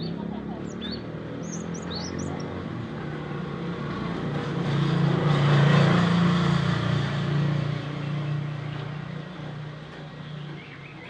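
A motor vehicle passing by: its engine and road noise grow louder to a peak about six seconds in, then fade away. A few short, high bird chirps sound in the first couple of seconds.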